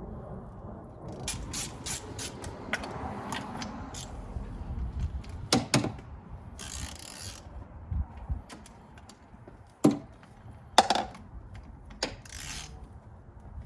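Ratchet wrench clicking in irregular runs and single strokes while turning a tight spark plug out of a 2006 Mustang GT's engine.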